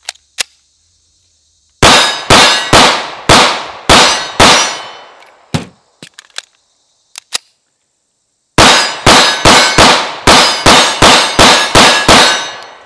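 CZ 75 P-01 9 mm pistol firing: six shots about half a second apart, then a few light clicks, then a fast string of about ten shots.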